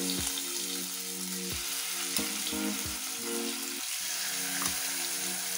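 Shallow oil sizzling in a non-stick frying pan as marinated fish steaks are laid in with tongs, with a few soft knocks. Soft background music plays underneath.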